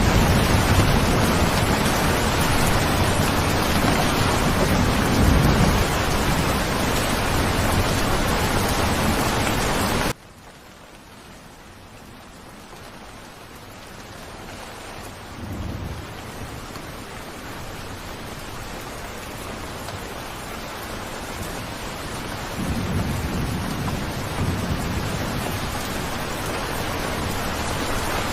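Steady heavy rain with rolling thunder rumbling underneath. About ten seconds in, the sound drops abruptly to a much softer rain, which then builds back up gradually as thunder rumbles return.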